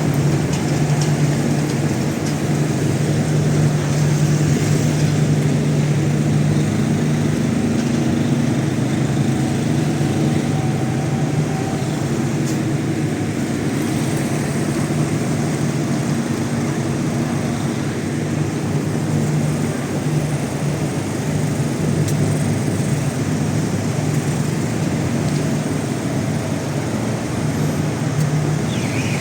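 Petrol or diesel generators running steadily, a constant engine hum over street noise: the power grid is down and buildings run on their own generators.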